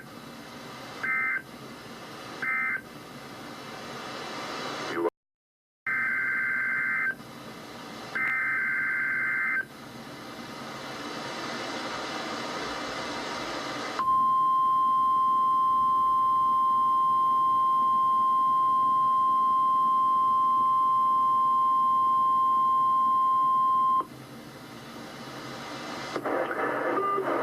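NOAA Weather Radio test broadcast received over a radio: three short EAS data bursts (end-of-message), then hiss, two longer EAS header data bursts, and then the 1050 Hz weather radio warning alarm tone held steady for about ten seconds before cutting off to hiss.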